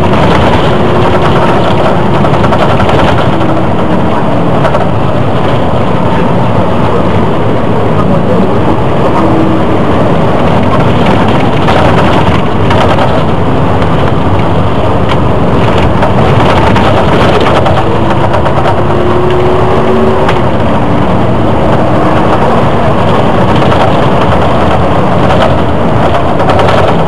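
Volvo Olympian double-decker bus heard from on board while under way: its engine and drivetrain run steadily under the loud, constant rattling of the bodywork, with a faint whine that slowly rises in pitch near the start and again about two-thirds through.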